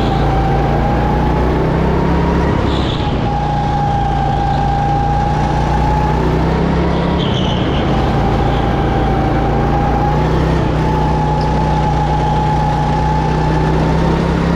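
Go-kart engine running at racing speed, heard from the driver's seat, its pitch dipping and rising a little several times as the revs change through the lap.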